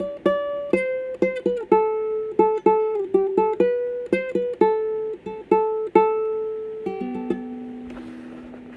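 Doner ukulele playing a melody of single plucked notes; near the end the last notes are left to ring and slowly fade.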